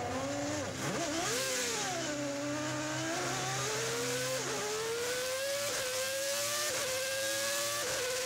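Williams FW16 Formula One car's Renault V10 heard from onboard, accelerating hard. The revs rise and fall unevenly over the first couple of seconds, then climb steadily with four quick upshifts about a second apart in the second half, the pitch dropping briefly at each change.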